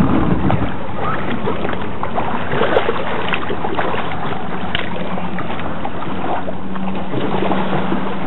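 Kayak at the water's edge: water splashing and lapping against the plastic hull and shore rocks over a steady rush of noise, with scattered light knocks.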